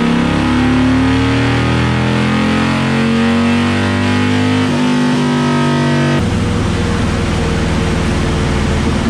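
Harley-Davidson Road Glide Ultra's stage-one 103 cubic inch V-twin at full throttle on a roller dyno, revs climbing steadily through a power run. About six seconds in the sound changes abruptly as the run ends and the throttle comes off.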